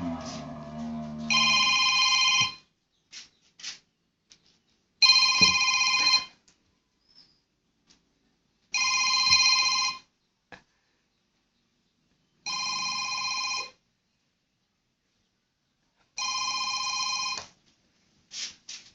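Telephone ringtone ringing five times in a regular pattern, each ring lasting about a second with pauses of about two and a half seconds between. Faint clicks and knocks between the rings.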